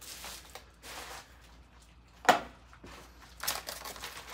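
Plastic bubble-wrap packing rustling and crinkling as it is handled and pulled away, in short bursts that pick up near the end. About two seconds in comes a single sharp snap, the loudest sound of the stretch.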